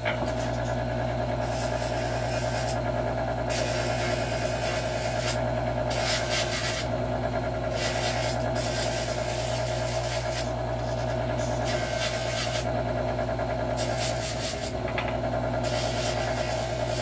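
Bench-mounted wheel motor running with a steady hum while a revolver hammer is pressed to the spinning wheel in repeated passes, giving a scratchy grinding hiss that comes and goes. The wheel is polishing rust and dark spots off the hammer along its original brush marks.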